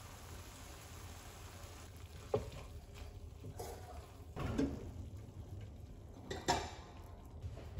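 Wooden spatula stirring and tossing water spinach in a nonstick wok, knocking against the pan about four times, one of them a longer scrape, over a faint steady hiss.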